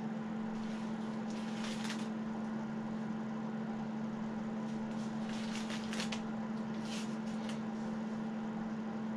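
A steady low machine hum, with a few brief soft rustles as a sheet of mesh is handled and pressed over a rifle on the bench, about one and a half seconds in and twice more between five and seven seconds.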